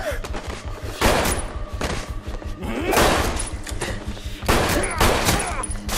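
Action-movie fight soundtrack: rapid gunshots and heavy hits over a music score.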